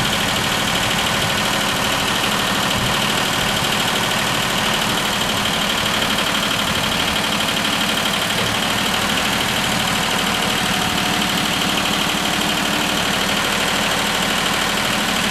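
John Deere 1050 tractor's three-cylinder diesel engine idling steadily.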